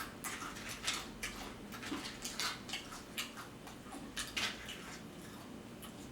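Close-up chewing of nachos with guacamole: a string of irregular wet mouth clicks and crunches.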